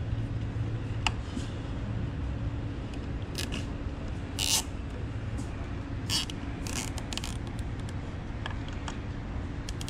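Nylon zip tie being threaded and pulled through its ratchet head in several short zips and clicks, the longest about four and a half seconds in, over a steady low hum.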